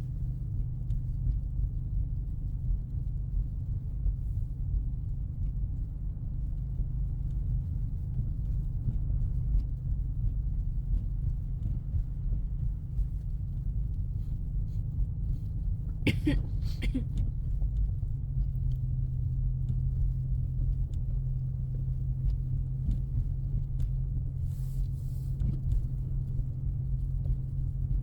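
Steady low in-cabin drone of a 2024 Mustang EcoBoost's turbocharged 2.3-litre four-cylinder driving through snow, a little fuller from about 18 seconds in. A brief higher-pitched sound comes about 16 seconds in.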